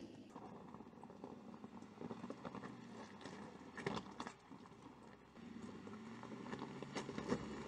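Tyres of a 2019 Mercedes-Benz G-Class crunching over loose rocks and gravel, with many irregular cracks and pops of stones under a low steady engine hum.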